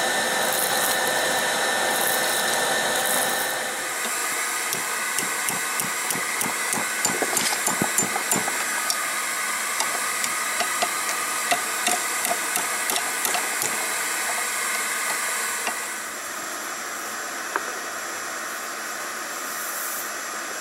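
Blower-fed forge running, a steady rush of air and fire with a high whine. About four seconds in it gives way to many light, irregular metal clinks and taps as the red-hot rebar is bent into a hook in a vise, and a quieter steady hiss is left near the end.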